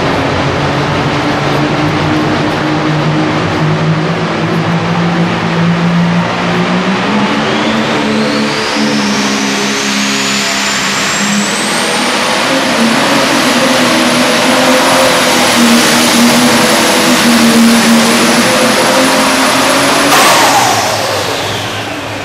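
Claas Axion pro stock pulling tractor's turbocharged diesel engine at full power on a pull. The engine note climbs and the turbo whine rises to a high, steady whistle, then about twenty seconds in the throttle is cut and the whine falls away.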